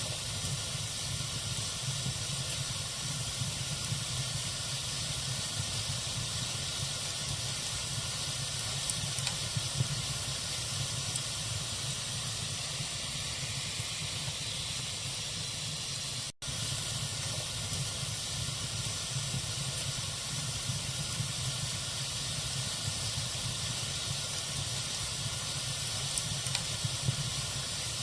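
Wood fire of burning logs in a fireplace: a steady hiss with a few faint crackles now and then. The sound cuts out for an instant about sixteen seconds in.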